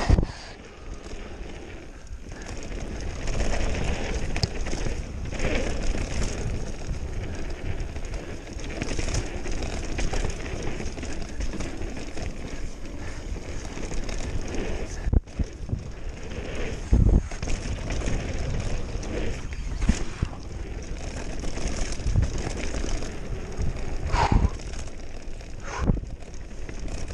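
Mountain bike running fast down a dirt singletrack: steady tyre and wind rumble on the camera microphone, with sharp knocks and rattles from the bike hitting bumps, roots and rocks, several of them past the middle and near the end.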